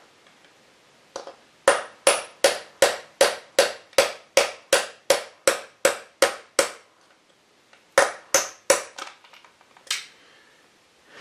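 Hammer striking a steel punch to drive a pin out of a shaft in a lathe's feed gearbox: sharp, ringing metallic taps. After a single tap or two comes a steady run of about fourteen taps at roughly three a second, then after a pause a few more.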